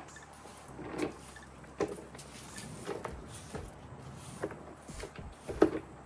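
Yard-cleanup handling sounds: about six separate short knocks and rustles, irregularly spaced, the loudest near the end.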